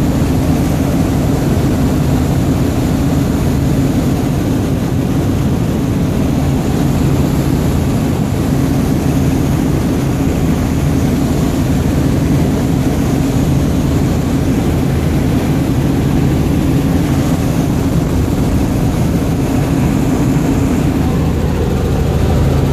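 A light helicopter's engine and rotors running steadily in flight, heard from inside the cabin as a loud, even drone with a low hum.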